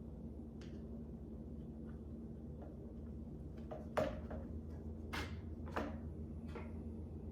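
Light clicks and short scrapes of HK416 rifle parts being handled and fitted together as the takedown pins go back into the receiver, the sharpest click about four seconds in. A steady low hum runs underneath.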